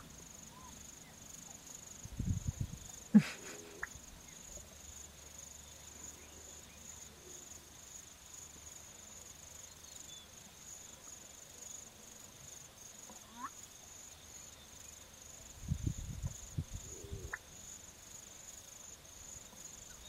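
Male black-bellied bustard giving its display call twice, about 3 s in and again near 17 s: a short low croaking rattle ending in a sharp 'cork-popping' pop. A steady high insect buzz runs underneath.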